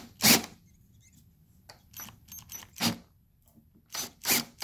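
Electric drill run in short bursts, its large bit cutting into a plastic fuel tank to enlarge a bolt hole for a nut insert. There are several quick bursts, a strong one just after the start and three close together near the end.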